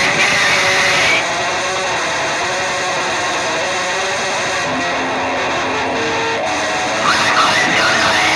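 Loud, dense noise music built on heavily distorted electric guitar through effects. The bright upper hiss drops back about a second in and returns about a second before the end, with a couple of brief held low notes in between.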